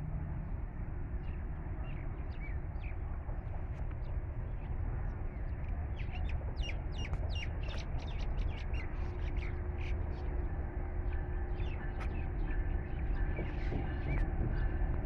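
Birds calling, many short chirps and caws, busiest in the middle, over a low steady rumble. About nine seconds in, a faint steady hum joins: the distant approaching diesel locomotive.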